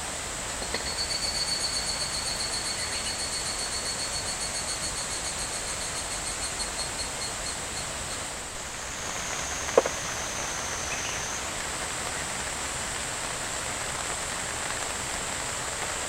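Insects trilling outdoors: a steady high-pitched trill throughout, with a faster pulsing trill from about a second in to about eight seconds in. A single sharp click or knock about ten seconds in is the loudest moment.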